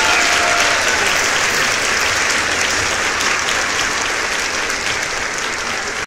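Crowd applause: dense, steady clapping that eases slightly and then stops abruptly.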